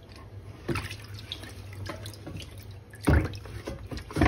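Lye solution sloshing and dripping in a plastic tub as a cast iron skillet is lifted from the bath, with a few sharp knocks, the loudest about three seconds in.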